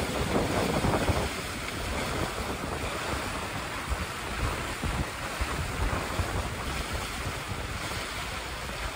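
Wind buffeting the microphone over a steady wash of sea water aboard a sailing boat.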